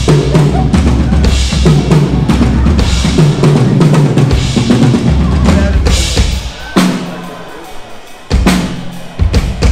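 Loud live music driven by a drum kit, with heavy bass drum and snare. After about six seconds the steady groove gives way to a few separate sharp accented hits with short pauses between them.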